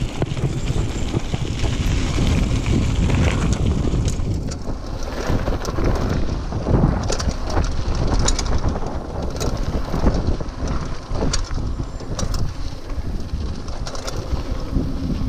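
Mountain bike rolling fast down a dirt trail: tyres rumbling over dirt with wind buffeting the camera's microphone, and from about four seconds in, many short rattles and clicks as the bike jolts over bumps.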